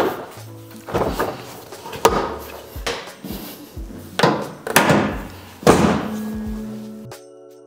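Hard plastic knocks and snaps as a knock-off TRD Pro grille is pressed and clipped into place on a Toyota Tacoma's front end: about seven sharp knocks, roughly a second apart, stopping shortly before the end.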